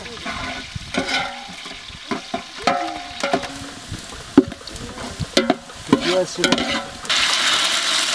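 Metal ladle stirring, scraping and knocking against a large aluminium pot in which sliced onions fry in oil, with short clanks at irregular intervals. About seven seconds in, a sudden louder, steady sizzle starts as tomato paste goes into the hot oil.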